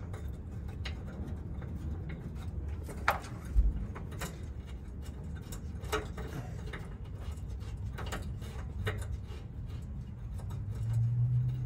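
Scattered light clicks and ticks of a stainless braided brake line and its fitting being handled and threaded on by hand, over a low steady hum. A dull thump about three and a half seconds in, and the low hum grows louder near the end.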